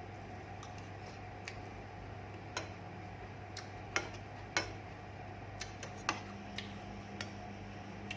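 Irregular light clicks and taps of someone eating from a plate, about a dozen over several seconds, the loudest about four seconds in, over a steady low hum.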